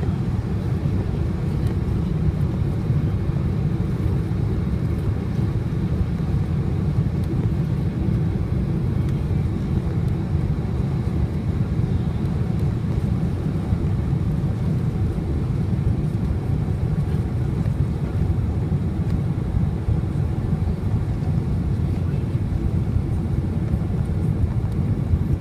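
Steady low rumble of an airliner, heard inside the passenger cabin. It holds even throughout, with no change in engine pitch.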